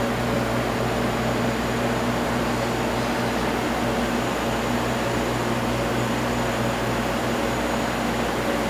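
Steady whir of indoor grow-room ventilation fans, with a constant low electrical hum under it.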